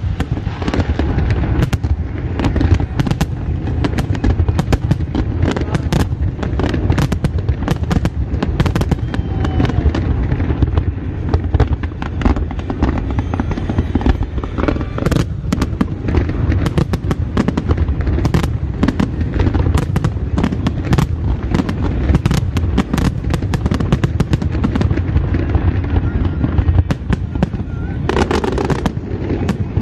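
Fireworks display: many sharp bangs and cracks from bursting aerial shells, coming close together and irregularly, over a continuous low rumble.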